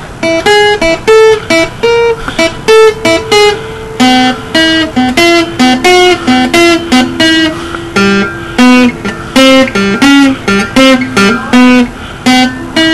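Acoustic guitar picked one note at a time in a finger exercise: a steady string of single plucked notes, about two or three a second, some left ringing under the next.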